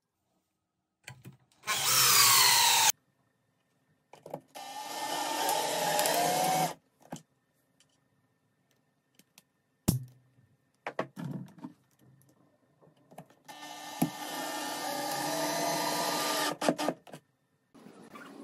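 Power drill running in three bursts of one to three seconds, driving screws into wood, its pitch falling during the first burst. A single sharp snap comes between the second and third bursts.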